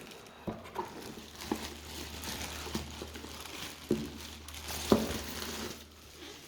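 Keyboard packaging crinkling and rustling as it is handled and unwrapped, with scattered knocks of the box and keyboard being moved; the sharpest knock comes about five seconds in. A steady low hum runs underneath.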